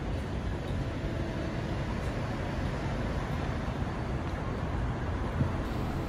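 Steady low rumble of city street traffic picked up by a smartphone's microphone while filming at night.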